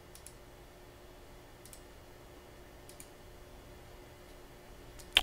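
A few faint clicks of a computer mouse, spaced roughly a second and a half apart, the last one near the end a little louder, over quiet room tone.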